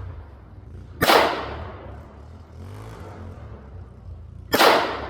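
Two loud sharp bangs about three and a half seconds apart, each echoing away over about a second, over a low steady rumble.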